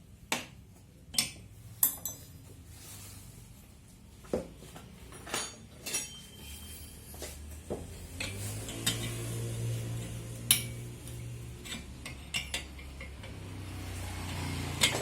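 Metal tools and engine parts clinking and knocking, a dozen or so separate sharp clinks spread through. A low steady hum comes in about halfway and swells twice.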